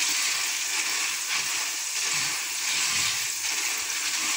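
Soaked chana dal deep-frying in hot oil, sizzling steadily as it is stirred with a spatula in a mesh strainer basket; it is in its last seconds of frying, almost crisp.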